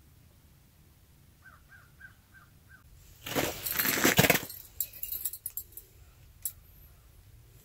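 Loud rustling and clattering handling noise for about a second, as the camera is bumped and knocked to a new angle, followed by a few light clicks. Just before it come five faint short squeaks in quick succession.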